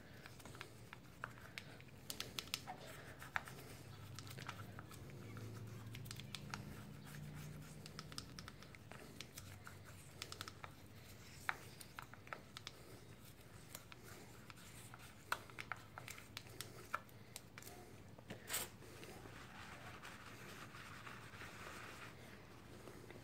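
Faint scratching, light clicks and rubbing from gloved hands cleaning an electronic throttle body: scrubbing and handling the part on a towel, with a short louder scrape about eighteen seconds in and soft paper-towel rubbing near the end.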